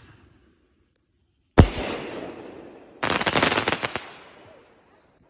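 Consumer firework shell from an assortment tube: one sharp bang about a second and a half in that rings off, then about a second of dense rapid crackling that fades away, typical of a crackling shell's stars.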